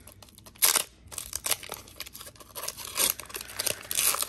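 Foil trading-card booster pack being torn open by hand, the wrapper ripping and crinkling. The loudest rip comes under a second in, followed by several shorter tears and crinkles.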